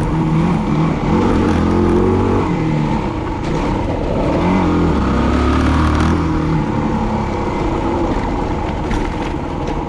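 Yamaha WR250R's single-cylinder four-stroke engine running under changing throttle, its pitch rising and falling, heard close from the handlebars. It settles to a steadier, slightly quieter note for the last few seconds.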